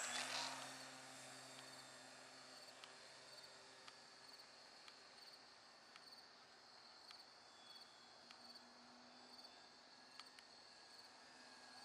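Faint crickets chirping in a steady pulsing rhythm, with a low distant hum from the RC plane's electric motor fading out after the first second.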